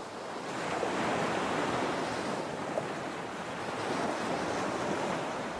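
Inline skate wheels rolling over smooth pavement, a steady rushing noise mixed with wind on the microphone.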